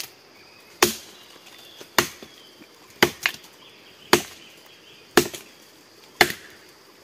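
Wood being chopped with a blade, six steady blows about one a second, some followed by a lighter second knock.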